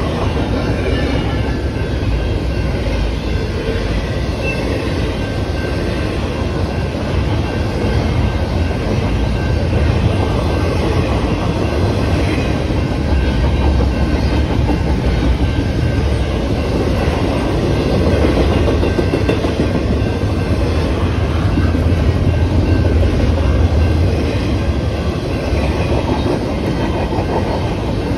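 Double-stack intermodal container train rolling steadily past on its well cars: a continuous heavy rumble of steel wheels on rail.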